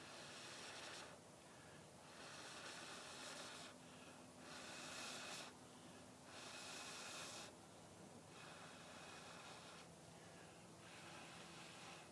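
A person blowing on smouldering tinder in a series of about six long, faint breaths, trying to fan hot ferro-rod sparks into a flame.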